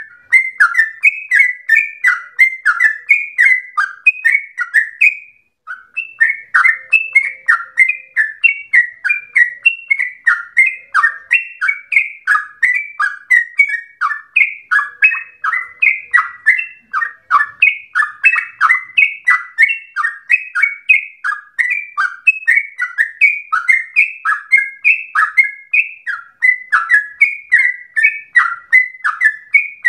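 Yellow-vented bulbul (trucukan) singing a long, unbroken run of quick bubbling notes, about two to three a second, with a short pause about five seconds in.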